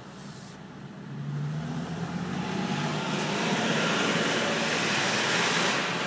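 Nissan 370Z's 3.7-litre V6 running as the car pulls away. The engine note and road noise build from about a second in and stay loud to the end.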